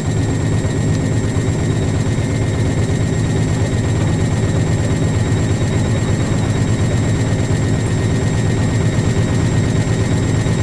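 Front-loading washing machines on a high-speed spin of around 1200 to 1400 rpm, giving a steady drum hum with a thin high whine over it.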